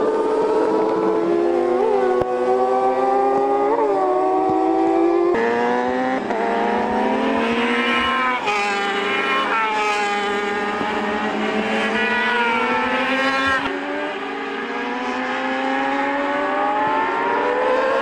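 Racing motorcycle engines at high revs on a circuit. The pitch climbs through the gears and drops on braking, with two short rev blips on downshifts. In the middle several bikes are heard together as a group goes past.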